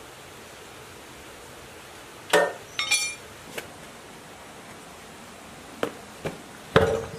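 Metal clanks and clinks from a tool and a cast-metal diesel engine crankcase being handled during assembly: a cluster of sharp knocks with short ringing after about two seconds, a few lighter taps, and the loudest, heavier knock near the end as the block is shifted.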